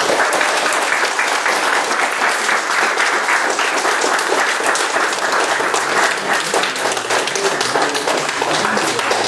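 A roomful of people applauding, many hands clapping in a dense, steady patter.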